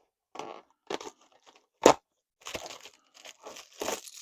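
Cardboard advent calendar door being torn open and packaging crinkling, in short irregular rips and rustles, with one sharp snap about two seconds in.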